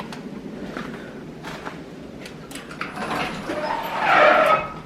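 Garage door opening: a steady rumble with scattered clicks, then louder scraping and rattling from about three seconds in that stops abruptly just before the end.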